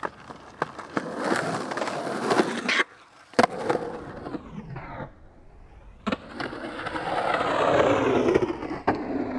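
Skateboard wheels rolling over concrete ditch banks, swelling and fading as the skater rides down, with sharp clacks of the board striking the concrete. The rolling breaks off abruptly twice as separate runs follow one another.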